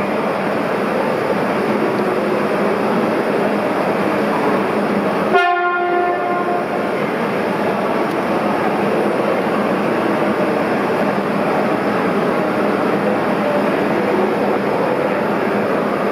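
Steady running noise of Shinkansen trainsets at the platform as an E5 Hayabusa creeps toward the waiting E6 Komachi to couple. About five seconds in, a short horn blast sounds.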